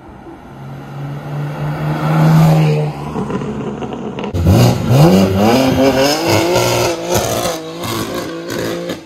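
Straight-piped BMW G80 M3's twin-turbo inline-six passing by at speed, loudest about two seconds in and fading as it goes past. After a sudden cut, the car accelerates hard, its revs climbing and dropping back several times with quick upshifts.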